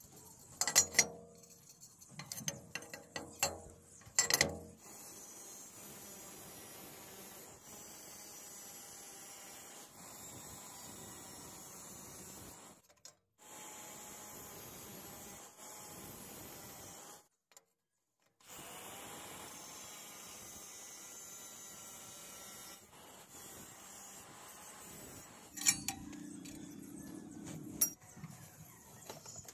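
A few sharp clicks and clinks of handling a square steel tube, then a long, fairly even sound of an angle grinder cutting through the tube, with a couple of short breaks. Near the end come more metal clinks as the cut pieces are handled.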